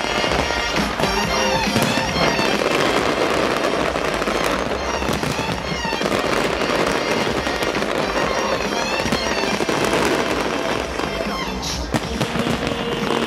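Dense fireworks display: many shells bursting and crackling in quick succession, with music playing underneath.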